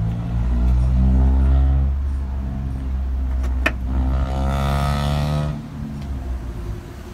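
GMC Yukon XL Denali's 6.2 L V8 idling with a steady low rumble. About three and a half seconds in comes a sharp click, then an electric motor whine that rises in pitch for about a second: the power liftgate starting to move.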